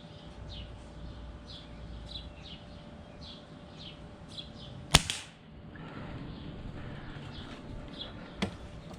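One sharp crack about halfway in: a single shot from a Crosman American Classic multi-pump .177 pellet pistol. A bird chirps repeatedly before the shot, and a fainter click comes near the end.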